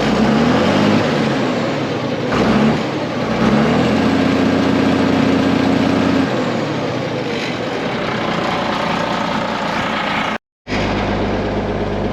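1980 Volvo F7 truck's diesel engine revved through its newly fitted Eminox exhaust, whose joints still leak. It rises in pitch in two short blips, then revs up and holds for about two seconds before dropping back to a steady idle. A brief dropout near the end, then it idles on.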